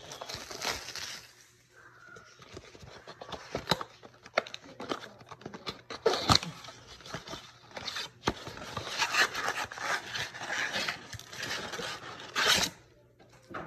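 Foil-wrapped trading-card packs and their cardboard box being handled: irregular crinkling and scraping with sharp clicks, and a louder rustle near the end.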